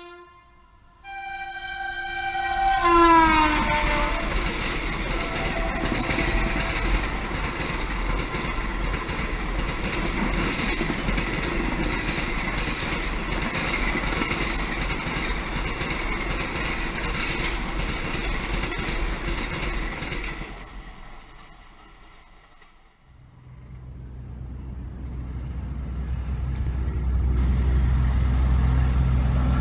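Electric passenger train passing at speed. Its horn sounds from about a second in and falls in pitch as the locomotive goes by, then the coaches rush past with a steady roar and rattle of wheels on rail for about seventeen seconds. After a break, a low rumble builds as another train approaches.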